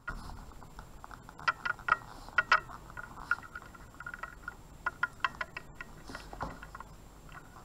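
Pen writing on a surface: a run of irregular small ticks and scratches.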